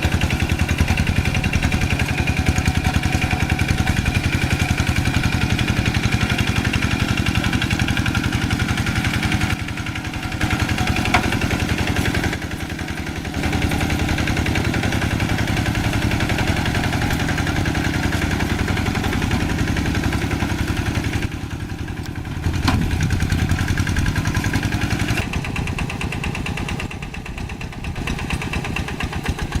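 Single-cylinder diesel engine of a Quick G1000 hand tractor running steadily under load while plowing deep paddy mud. Its level shifts abruptly several times.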